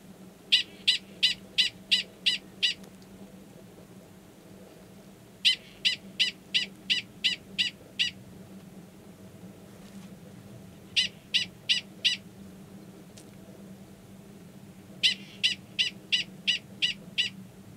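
Male Gunnison's prairie dog giving a mating call: four bouts of sharp, repeated chirp-barks, about three a second, with pauses of a few seconds between bouts. The call is the same as the species' alarm call, but here it is a male courting an estrous female who is in a burrow below him.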